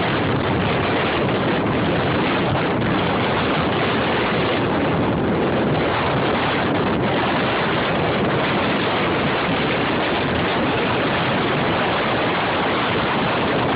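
Strong storm wind blowing across the microphone: a loud, steady rushing noise.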